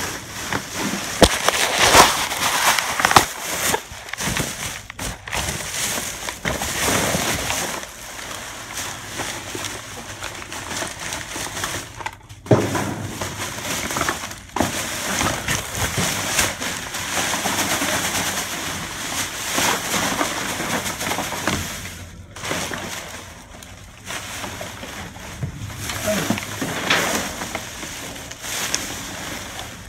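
Plastic garbage bags rustling and crinkling as trash in a dumpster is pushed around and pulled apart, in irregular swells of louder crunching.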